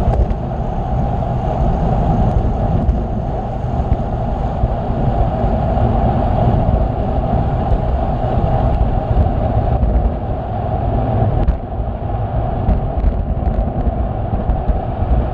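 Wind buffeting the microphone of a camera on a moving bicycle: a loud, steady rumble with no distinct events.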